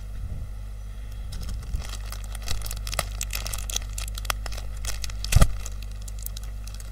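Plastic snack wrapper crinkling and crackling as it is handled and eaten from, with a louder thump about five seconds in.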